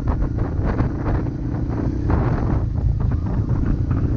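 Dirt bike engine running while riding along a rough dirt track, mixed with heavy wind buffeting on the microphone.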